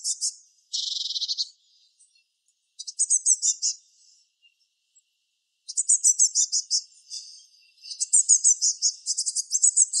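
Eurasian blue tit fledgling begging: bursts of rapid, thin, high chirps repeated in quick series, with a short buzzy call about a second in and near-silent gaps between bursts.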